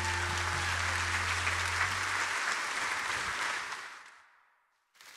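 Audience applauding, with a low held musical note ringing under it for about the first two seconds. The applause fades out to a moment of silence near the end, and then more clapping begins.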